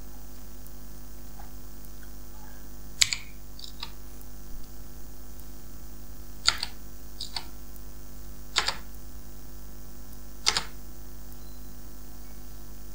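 Clicking at a computer: about six short, sharp clicks, several of them quick double clicks, spaced a second or two apart. A steady electrical hum runs underneath.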